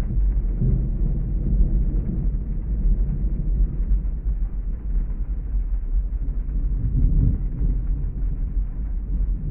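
Thunderstorm ambience: a steady deep rumble with rolls of thunder swelling about a second in and again around seven seconds.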